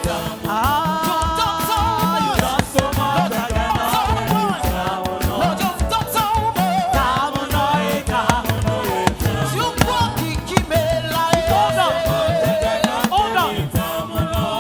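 Gospel praise music: a live band playing with voices singing long, wavering held notes over busy percussion.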